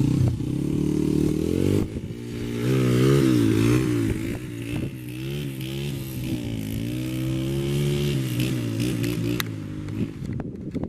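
Honda XR100R dirt bike's single-cylinder four-stroke engine running steadily, then revving hard and accelerating away about two seconds in. Its pitch rises and dips repeatedly under acceleration, then the engine eases off near the end.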